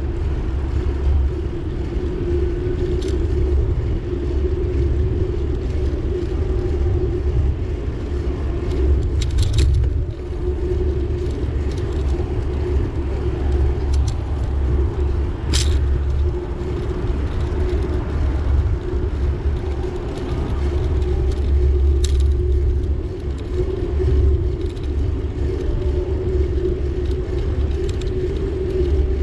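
Steady low rumble and hum of a moving vehicle, with a few sharp clicks or knocks now and then.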